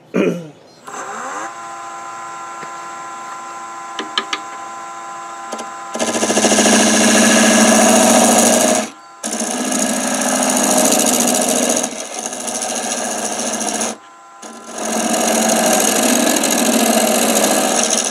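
Wood lathe switched on and spinning up to a steady motor hum, then a parting tool cutting into the spinning wood with a loud, even scraping, starting about six seconds in and stopping briefly twice.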